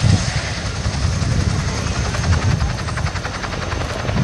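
Boeing Chinook tandem-rotor helicopter flying low, its twin rotors beating in a rapid, even pulse with a thin steady high whine over it.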